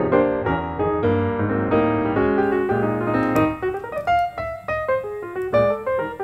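Background piano music: full chords with a moving melody, thinning to lighter, sparser notes about halfway through.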